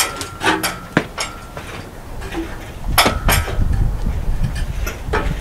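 Metal clinks and knocks from an engine hoist and its chain as the engine hanging from it is lifted and worked clear of the engine bay, with one clink ringing briefly about half a second in. A low rumble joins in about halfway through.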